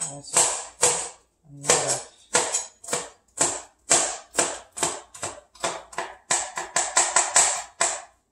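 Chef's knife chopping bell peppers on a cutting board: a run of sharp knocks about two a second, quickening to a rapid flurry near the end.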